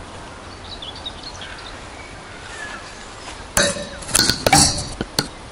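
Faint birds chirping over a quiet outdoor background. About three and a half seconds in, a sudden burst of close clinking and rustling lasts under two seconds, like handling noise against a wire fence.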